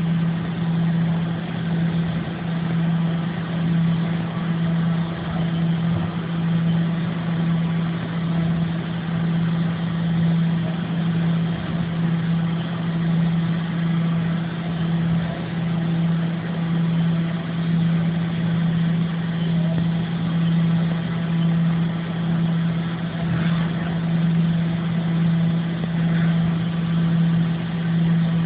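Haas VF-2B vertical machining center running under power: a steady mechanical hum with a slow, even swell and fade.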